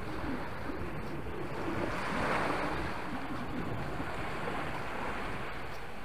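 Small sea waves breaking and washing up a sandy shore, a steady hiss of surf with one wash swelling louder about two seconds in.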